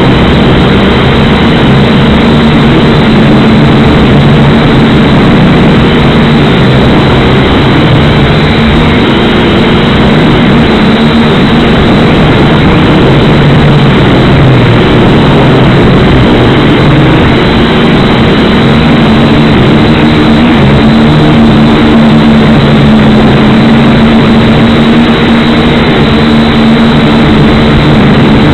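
Syma X5C-1 quadcopter's four small brushed motors and propellers buzzing loudly in flight, picked up by its own onboard camera's microphone; the pitch wavers as the throttle changes.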